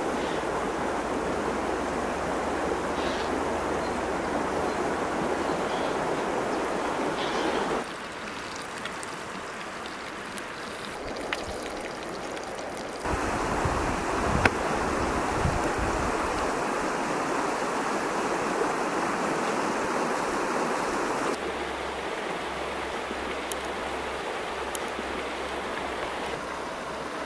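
Steady rushing noise like running water, its level and tone changing abruptly about 8, 13 and 21 seconds in, with a sharp knock about halfway through.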